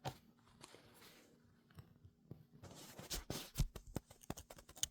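Faint clicks and short scrapes of small tools and parts being handled on a workbench, mostly in the second half.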